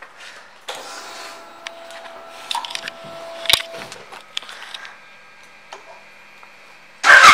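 Faint handling clicks and a faint steady whine on a 2009 Suzuki Boulevard M90 with the ignition on. Near the end its V-twin engine starts suddenly, loud and sustained.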